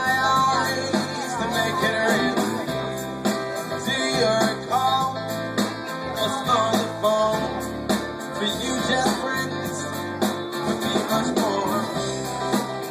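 Live band music played through PA speakers, heard from across the patio: guitar and steady bass notes with a voice singing.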